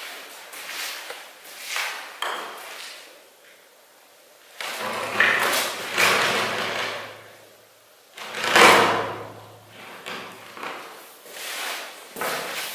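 Heavy metal cell door being pushed shut, in two drawn-out scraping strokes about five and eight and a half seconds in, each with a low hum under it. Smaller knocks and shuffles come before and after.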